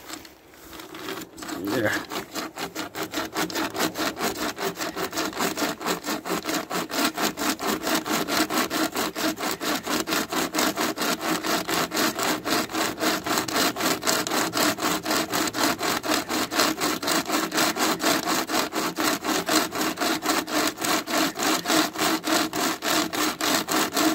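A pocket chainsaw, a toothed chain pulled back and forth by paracord handles, rasping through a dead log in a fast, even rhythm of strokes. It starts up about a second and a half in and keeps a steady pace.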